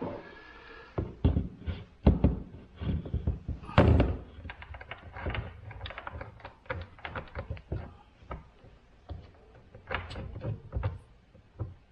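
Knocks, taps and clicks as a replacement bar and chain are handled and fitted onto a cordless chainsaw body, with a few louder thunks about two and four seconds in.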